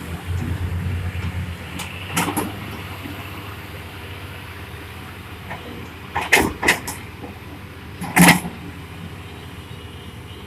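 Excavator's diesel engine running steadily, pulsing in the first second or so, with sharp clanks about two seconds in, twice around six and a half seconds, and loudest about eight seconds in, typical of the bucket or aggregate striking metal.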